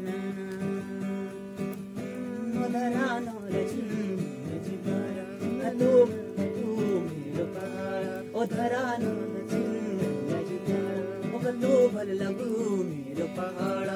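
Acoustic guitar strummed, with a man singing along.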